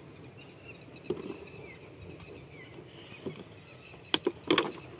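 Soft scuffs and knocks of a hollow plastic container stuck over a dog's head as the dog moves over dirt and stones, then a couple of sharp plastic knocks about four seconds in as the container is grabbed by hand.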